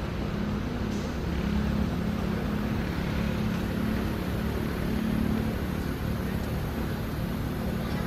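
An engine running steadily, a constant low drone with a hum that hardly changes.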